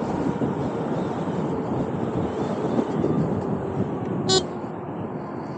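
Street traffic noise, with one short horn beep about four seconds in.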